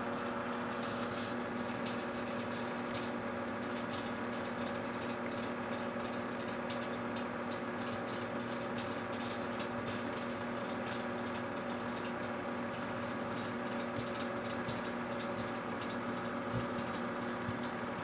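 Microwave oven running with a steady hum, under a fast, irregular crackle from an SOS steel-wool pad and a pencil burning and sparking inside it.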